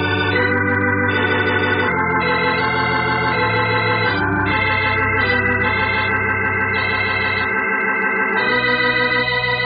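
Organ music playing held, sustained chords that change three times, a musical bridge closing the scene of an old-time radio drama.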